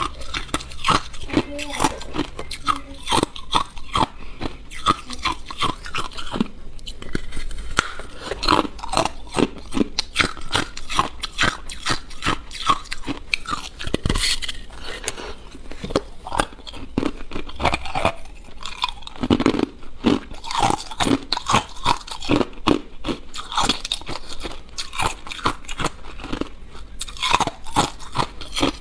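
Ice being bitten and chewed close to the microphone: a dense, irregular run of sharp crunches throughout.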